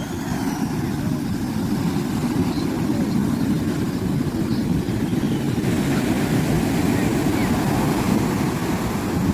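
Wind buffeting the microphone: a steady low rumble that swells in the first second and then holds.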